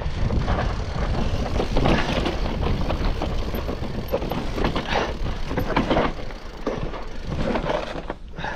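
Mountain bike riding down a rough, rocky trail: tyres knocking over rocks and the bike rattling in quick irregular clatters over a constant rumble of wind and rolling noise. The clatter eases near the end as the bike slows.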